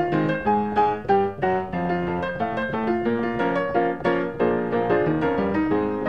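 Piano music: a busy tune of short notes, several to the second, played steadily.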